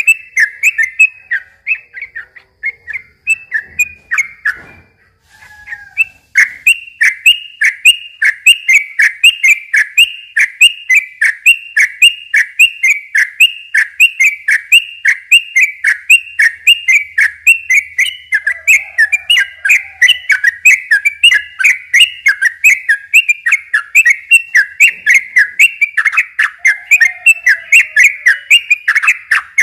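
Yellow-vented bulbul (trucukan) singing a long, rapid run of repeated chirping notes, about four a second. The song thins out and pauses briefly a few seconds in, then runs on unbroken.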